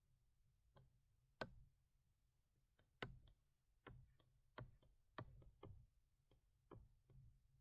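Near silence with a faint low hum, broken by about a dozen soft, irregular clicks and taps, as from working a computer's drawing controls.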